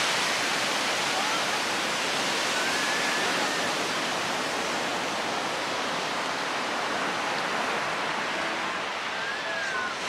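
Ocean surf breaking and washing up a sandy beach: a steady rushing wash of waves that eases slowly in level.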